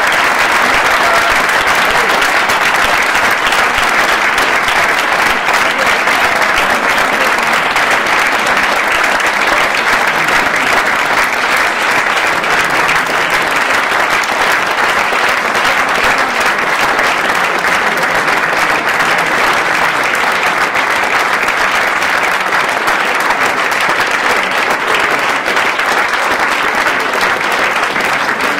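Theatre audience applauding, a dense, even clapping that holds steady at the same level throughout.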